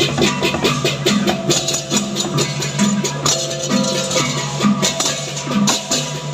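Balinese gamelan percussion music playing: rapid, steady clashing strokes over drums and held metallic tones, in the style of the baleganjur processional ensemble that accompanies a cremation tower.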